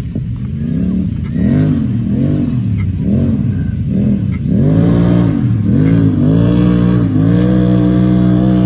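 Side-by-side UTV engine revving up and down about twice a second, the swings then slowing before the revs are held steady and high near the end.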